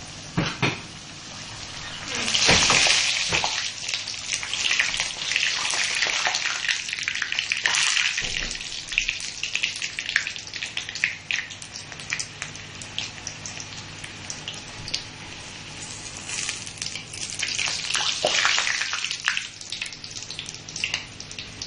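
A semolina puri deep-frying in hot oil in a steel kadai: a steady sizzle full of small crackles. The sizzle is loudest about two seconds in and swells again about three-quarters of the way through.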